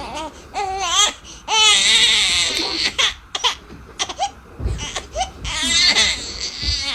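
A small child crying: a run of short, wavering, high-pitched wails with breaths between them.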